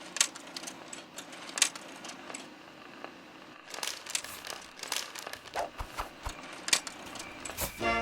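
Scattered small clicks and rustles over a low steady hum.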